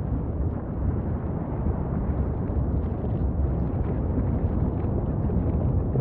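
Steady low rumble of an erupting volcanic vent fountaining lava, with faint crackles scattered through it.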